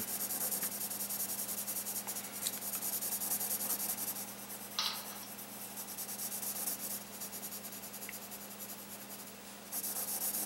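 Pencil scratching on sketchbook paper in quick back-and-forth shading strokes, filling in a dark area of a drawing. The strokes go softer for a few seconds and pick up again near the end.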